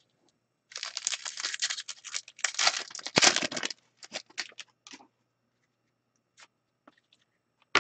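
A foil trading-card pack wrapper torn open and crinkled for about three seconds, then a few light crackles as it is pulled off the cards, and one sharp tap near the end.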